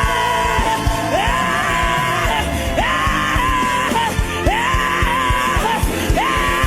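Live gospel worship music with drums, a voice repeatedly swooping up into long held high notes, about five times, without clear words.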